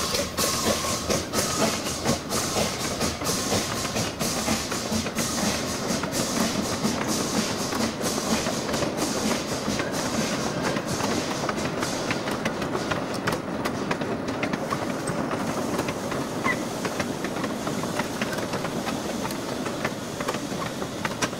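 Narrow-gauge log wagons rolling past on light track, wheels clicking over the rail joints, the clicks coming thick at first and thinning toward the end. Steam hiss from the locomotive that has just passed fades away over the first half.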